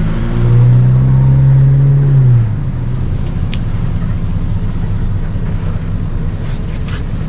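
An electric dirt bike being ridden across a snowy lot, with a low rumble of riding. A steady low hum for the first two and a half seconds stops abruptly, leaving the rumble.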